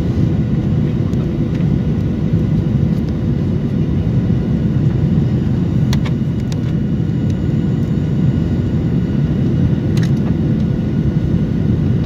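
Steady cabin roar of a jet airliner on final approach, heard beside the wing-mounted engine: engine and airflow noise with faint steady tones above it.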